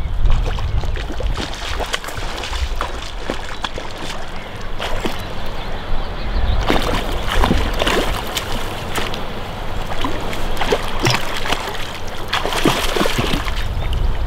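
A hooked trout splashing and thrashing at the river's surface beside the bank as it is played in to a landing net. The splashes come irregularly, thickest about halfway through and again near the end.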